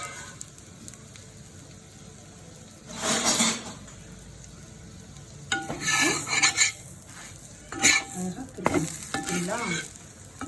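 Sandwich sizzling faintly on a hot tawa, with a spatula scraping and a metal plate clattering in bursts, about three seconds in and again through the middle and later part.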